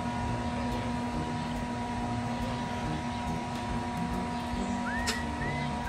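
Steady hum over a constant background noise, with a few short chirps and a single click about five seconds in. No welding arc is heard yet.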